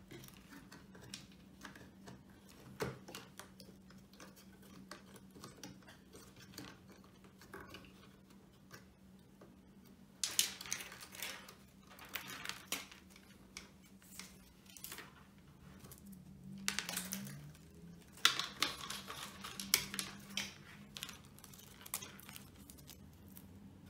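Hand work on loudspeaker wiring: small clicks and wire rustling as connectors are pushed onto the drivers' terminals, with two longer spells of rustling and scraping about ten and eighteen seconds in. A faint steady hum underneath.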